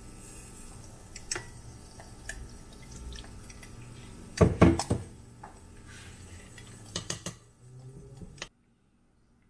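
Water poured into a bowl of sauce, a short loud splash about halfway through, between light clinks of a metal spoon against the bowl; the spoon clinks again as the sauce is stirred, and the sound cuts off abruptly near the end.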